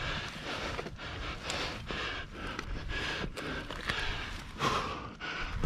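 A climber breathing hard in quick, repeated breaths, winded from the exertion of climbing.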